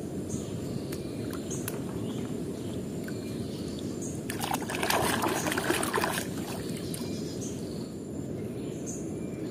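Water splashing and sloshing for a second or two about halfway through as a small toy is dunked by hand into a tub of water, over a steady low rushing background.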